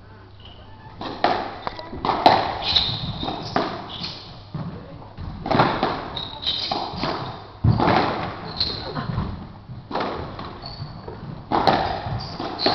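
Squash rally: the ball cracking off rackets and thudding against the court walls, starting about a second in, with short high squeaks of shoes on the wooden floor between shots.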